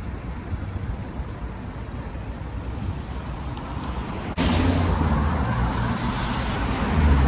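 Road traffic: a low rumble of vehicles, then, from an abrupt cut about four seconds in, louder engine and tyre noise as a van drives past close by.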